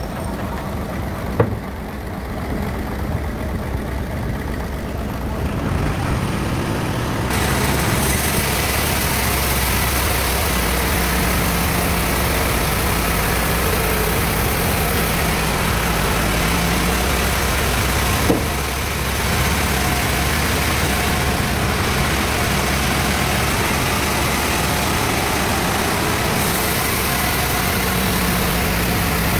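Sawmill bandsaw machine running with a steady mechanical drone. About seven seconds in it grows louder and takes on a high hiss. Two sharp knocks, about a second in and again about two-thirds of the way through.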